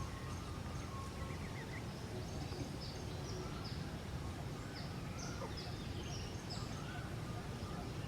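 Outdoor ambience with small birds calling: many short, high, downward chirps in quick runs over a steady low background rumble.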